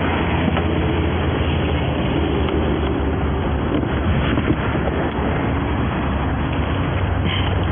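Steady low vehicle rumble at the roadside, with a few faint clicks.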